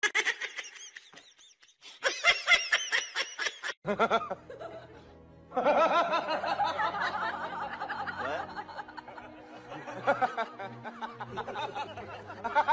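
Laughter, with a quick run of ha-ha pulses about two seconds in, over background music that fills the rest.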